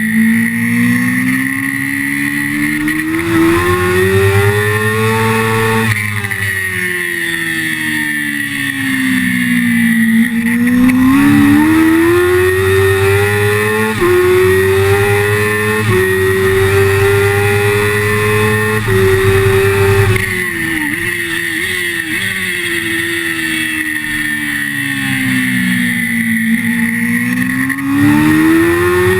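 Sport motorcycle engine heard onboard at racing pace: the engine note climbs hard under acceleration, stepping at quick upshifts, then drops away under braking and downshifts into corners, several times over. A steady high whine sits above it.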